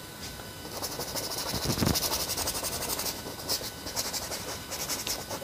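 Oil-painting brush scrubbing rapidly across a large canvas with little paint on it, a scratchy hiss of quick short strokes that swells and eases in bursts.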